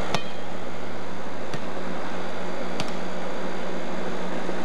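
Steady hiss with a low hum from an early-1990s camcorder's microphone and tape, broken by a few short clicks, the first just after the start as a volleyball is struck.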